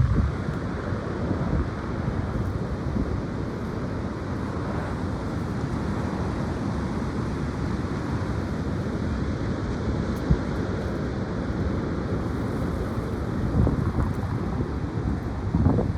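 High wind buffeting the microphone: a steady low rumbling rush with stronger gusts at the start and near the end.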